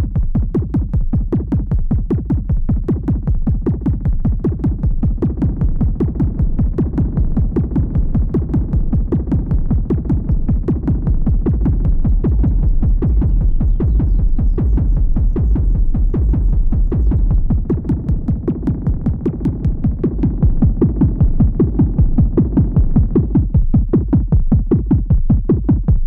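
Moog Matriarch semi-modular analog synthesizer playing a fast repeating sequence of short, bass-heavy notes, its tone shifting as panel knobs are turned during playback. The sequence cuts off abruptly at the end.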